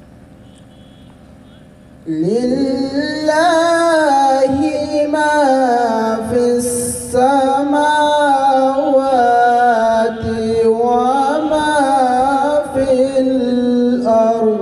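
A man reciting the Quran in the drawn-out melodic tilawat style into a microphone. He begins about two seconds in with long held notes that waver and glide in pitch.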